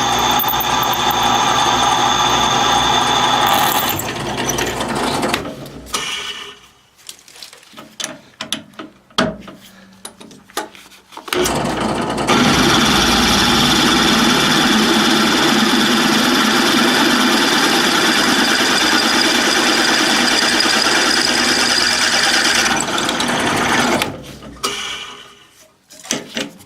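Drill press running and drilling bolt holes in a cast iron casting. It runs steadily, stops about four seconds in, and a few clicks and knocks follow. It starts again about twelve seconds in and runs steadily until it spins down near the end.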